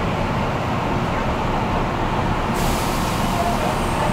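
Steady low rumble of a large vehicle, then a sudden hiss of released compressed air about two and a half seconds in that carries on to the end.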